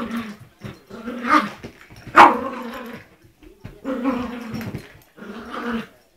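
A dog growling in repeated bursts while playing with a toy, with a louder bark about two seconds in.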